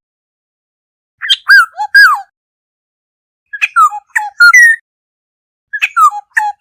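Black-hooded oriole calling: three short phrases of quick whistled notes, most sliding down in pitch, each phrase about a second long and spaced about two seconds apart, with the last one still going at the end.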